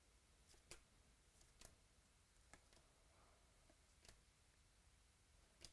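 Faint, sharp clicks of baseball cards being flipped through by hand, five in all, about a second apart, over near-silent room tone.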